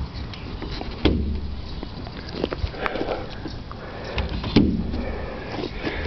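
Rumbling handling noise from a handheld camera on the move, with a few sharp clicks and knocks, the loudest about four and a half seconds in.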